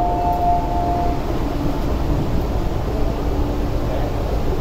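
Two-tone electronic chime inside an MTR SP1900 (IKK) train car, most likely the door warning chime, ending about a second in. After it, the car's steady low equipment and ventilation hum carries on with a faint steady tone while the train stands at the platform.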